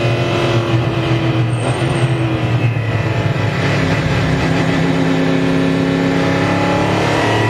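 Ligier JS P3 LMP3 race car's Nissan 5.0-litre V8, heard from inside the open cockpit while lapping. The engine note drops in pitch about two seconds in, holds a steady lower note through a corner, and starts to climb again at the end.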